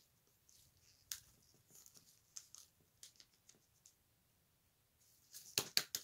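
Trading cards being handled on a tabletop: faint rustles and light ticks, then a quick run of sharper card clicks near the end.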